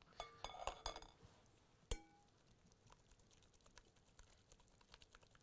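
Light clinks of a metal spoon against a mesh strainer and glass bowl while yogurt-marinated lamb is drained, several in the first second and one sharper ringing clink about two seconds in, then faint tapping.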